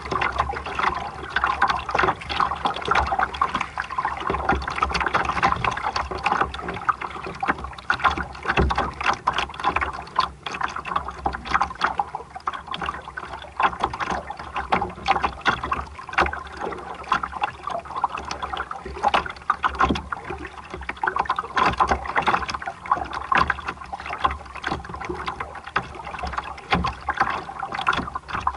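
Water splashing and rushing against the hull of a small sailboat under way, in many small irregular splashes, over a low rumble of wind on the microphone.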